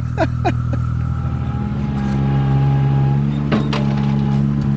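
Ventrac compact tractor's engine running steadily, a low even hum whose note shifts slightly about two seconds in.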